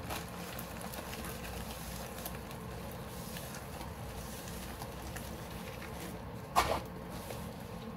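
Faint rustling of a plastic-covered diamond painting canvas being handled and rolled up by hand, with one short, sharp, louder sound about six and a half seconds in.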